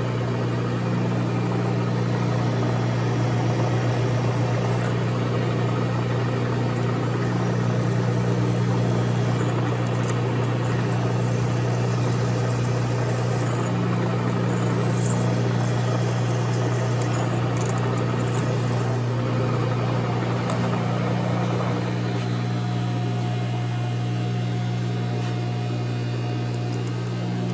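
Milling machine running with a steady hum while a 27/64-inch drill bit cuts a hole into half-inch scrap metal plate. The cutting noise drops away about 22 seconds in, leaving the machine's hum.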